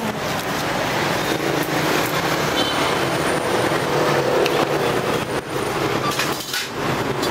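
Steady din of busy street traffic, mostly motorbike engines running and passing.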